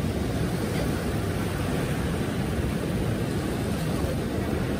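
Wind buffeting the microphone in a steady low rumble, over the rush of the Ohio River's waves breaking on the shore and its rapids.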